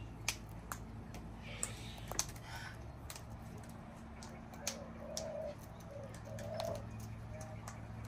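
Sulphur-crested cockatoos feeding on seed on a wooden balcony railing: scattered sharp clicks and taps of beaks and claws on the timber. In the second half a soft, low cooing call repeats several times.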